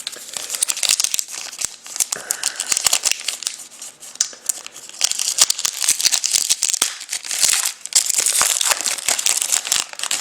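Plastic card packaging crinkling and tearing as trading cards are unwrapped and handled, a dense run of sharp rustles and clicks.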